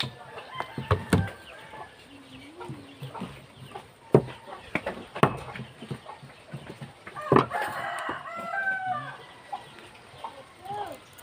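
Cleaver chopping small stonefish on a wooden board, a few sharp irregular chops, the loudest about 4 and 7 seconds in. Chickens call in the background, with a rooster crowing after the chop near 7 seconds.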